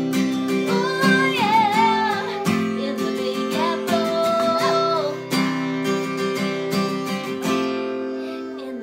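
Steel-string acoustic guitar strummed in steady chords, with a woman singing over it. The strumming stops about two-thirds of the way through and the last chord rings and fades.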